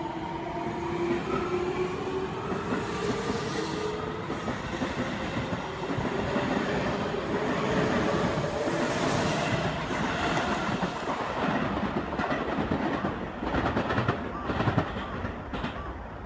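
Seibu 20000 series eight-car electric train pulling out and accelerating away, its motor whine rising in pitch over the first few seconds. Then a steady wheel rumble, and near the end a quick run of clatter over the rail joints as the last cars go by.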